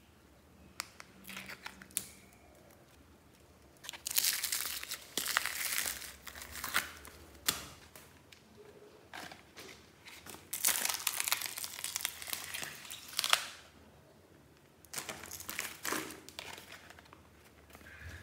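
Old slime, including foam-bead slime, being scraped from plastic tubs and dumped into a plastic-bag-lined basket: a few light clicks, then three longer spells of crinkling and crackling.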